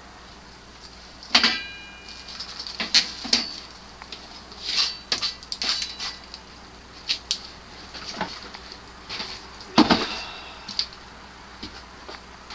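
Irregular metal clanks, taps and clicks from metal workpieces being handled. One strike about a second and a half in rings briefly, and the loudest knock comes near the end.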